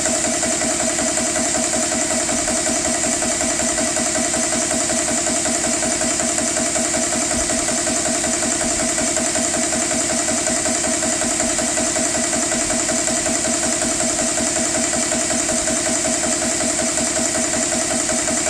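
GX CS3 PCP 4500 psi high-pressure air compressor running steadily, with a fast, even pumping pulse under a constant high hiss, as it pumps an air rifle up toward fill pressure near the end of the fill.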